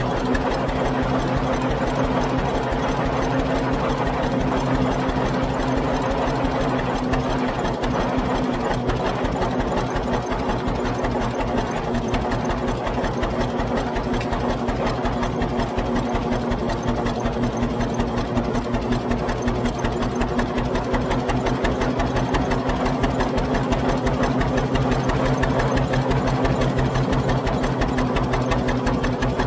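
The two-cylinder kerosene engine of a 1922 International 10-20 Titan tractor running steadily under load as the tractor works across a hill, with a fast, even mechanical clatter.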